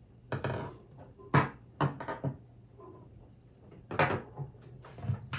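Hex keys being picked up and set down on a wooden tabletop: about seven irregular knocks and clicks, the sharpest about a second and a half in and again about four seconds in.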